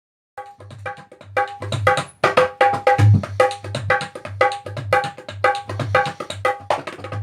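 Hand-drum percussion in a quick, steady rhythm, starting about half a second in: sharp ringing pitched strokes over a regular pattern of low booming beats.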